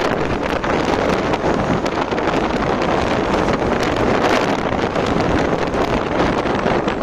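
Wind buffeting the microphone of a moving motorcycle, a steady loud rush with the bike's running and road noise underneath.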